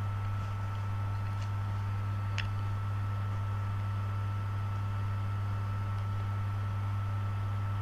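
Steady low electrical hum with hiss and two thin high tones, the kind of mains hum a webcam microphone picks up. There are two faint clicks, about one and a half and two and a half seconds in.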